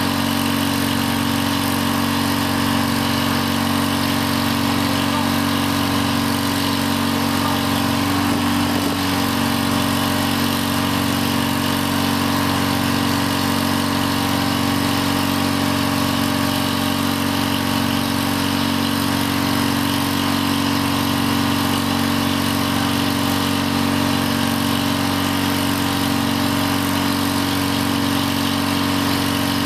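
Engine running steadily at a constant pitch, powering the hydraulics of an IMT crane while it is worked from its control levers.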